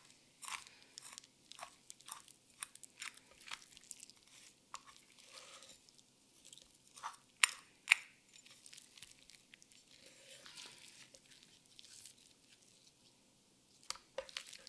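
Single-bevel honesuki knife cutting a chicken breast off the carcass: a string of faint crunchy clicks and snicks as the blade works along bone and cartilage, with two sharper snaps about halfway through.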